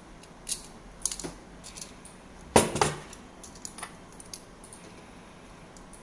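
Small metal clicks and clinks of pliers and a metal N-male coax connector being handled, with a louder clatter about two and a half seconds in.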